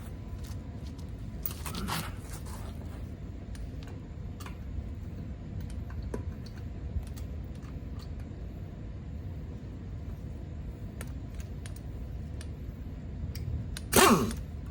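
Small clicks and clinks of tools and lug nuts being handled during wheel work, over a low steady background. Near the end comes a brief louder burst that falls in pitch, likely a lug-nut tool run briefly.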